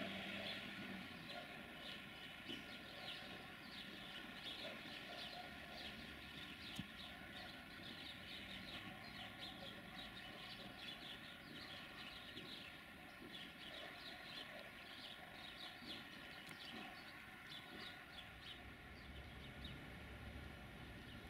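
Small birds chirping in many short, quick calls throughout, over a faint steady hum.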